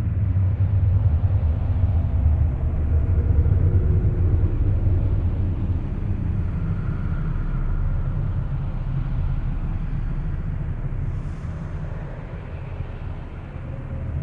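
Deep, continuous rumbling drone of the kind reported as a 'strange sound' coming from the sky, with faint wavering tones above it; it eases slowly toward the end.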